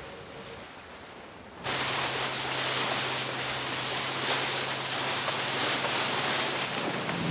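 Motorboat engine running at speed under a loud rush of water and spray, cutting in abruptly about one and a half seconds in; before that only a faint hiss. A steady low engine hum sits beneath the water noise.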